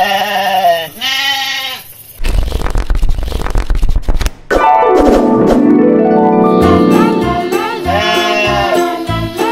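Two short sheep bleats, one after the other. Then a loud rush of noise, and from about four and a half seconds in, an intro jingle of music.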